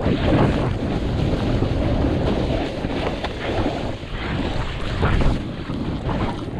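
Wind rushing over a GoPro action camera's microphone, with a snowboard scraping and hissing over firm snow. The sound swells and eases several times as the rider carves turns down the slope.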